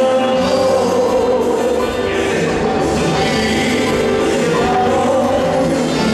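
Live band playing through the PA with electric guitars and a singer, amplified and loud; a heavy low end comes in just after the start.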